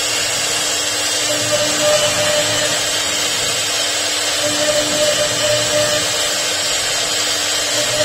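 CNC router spindle running at high speed and cutting into a wooden sign board, a steady high whine with a lower hum that comes and goes.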